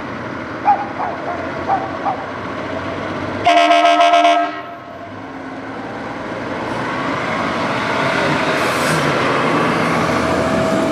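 Fire engine's air horn sounding one blast of about a second, followed by the truck's diesel engine growing louder as it pulls out and drives close by.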